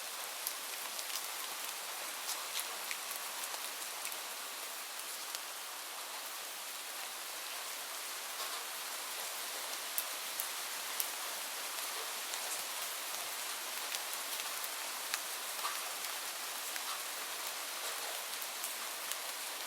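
Light rain falling steadily, a soft even hiss with many separate drops ticking on a surface.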